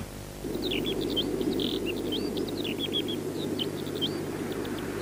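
Small birds chirping and calling with many short rising and falling notes, over a steady low rushing noise that starts about half a second in.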